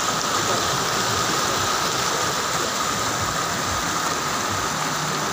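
Fast mountain stream rushing over rocks in white water, a steady loud rush of running water.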